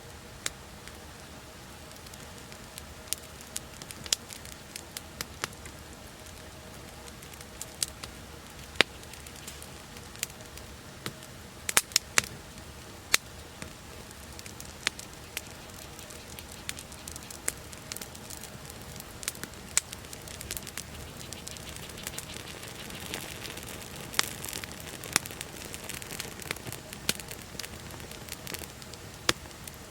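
Wood campfire burning with irregular sharp pops and crackles over a steady low hiss, the crackling growing denser for a few seconds in the last third.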